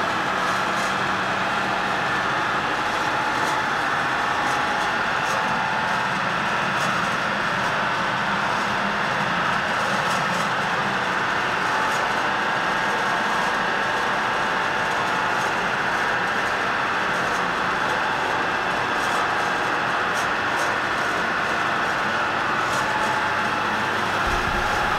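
Skoda car running steadily on a roller test stand, its driven wheels spinning on the rollers: a continuous, even rolling hum and whine with the engine running underneath.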